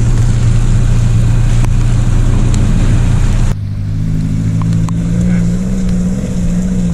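Off-road vehicle engine running under load with a steady drone. About three and a half seconds in the engine note changes abruptly and briefly drops in level, as at a gear change, then runs on.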